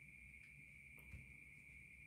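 Near silence: room tone with a faint steady high-pitched hum and a couple of faint ticks.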